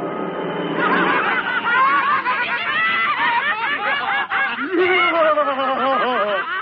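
A crowd of cartoon voices laughing at once, many overlapping mocking laughs that start about a second in and keep going.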